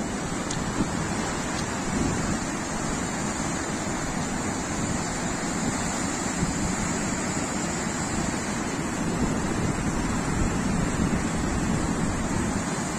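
Muddy floodwater rushing steadily through a breach in a railway embankment, a continuous turbulent torrent.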